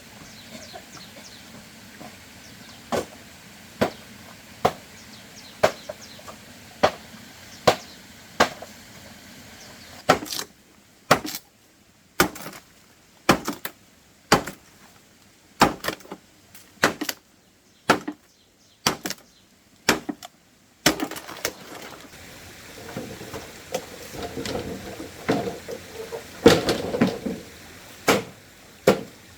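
Chopping strikes into wood, about one a second. Near the end they give way to quicker, clustered knocks over rustling.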